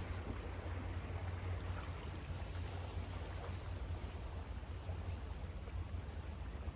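Sea waves washing on a beach in a steady wash, with a steady low rumble underneath.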